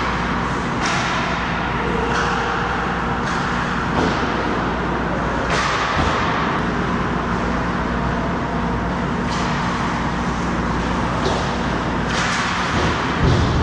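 Ice hockey skates gliding and scraping on rink ice, with about eight sharp scrapes or knocks spread through, over a steady hiss and low hum.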